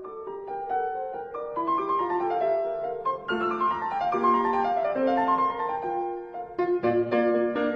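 Piano music: a melody of quick single notes stepping up and down over lower notes.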